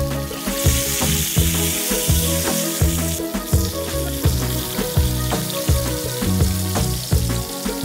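Salmon steaks sizzling as they fry in hot sunflower oil in a pan, over background music with a steady beat. The sizzle is strongest in the first three seconds.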